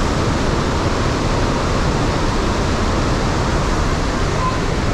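Iguazu Falls: a loud, steady rush of a huge volume of falling water.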